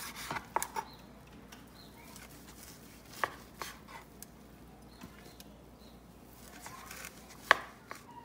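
A large knife slicing through a cooked moose roast on a cutting board, with a few sharp taps as the blade meets the board; the loudest tap comes near the end.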